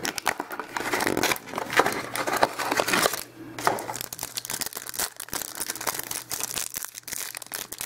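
Foil trading-card pack wrapper crinkling and crackling as a hand handles it, in a quick run of crackles with a short pause about three seconds in.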